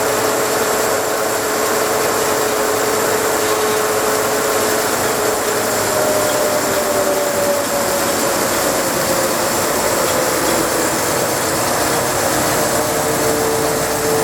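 Doall Zephyr ZV-3620 high-velocity friction band saw running steadily, the hum of its 10 hp motor, variable-speed belt drive and moving blade, set at about 4,000 feet per minute. One of its tones slides slowly lower through the middle.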